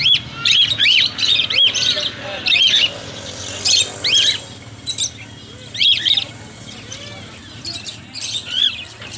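Caged budgerigars chirping and squawking: a steady stream of short, sharp calls in clusters.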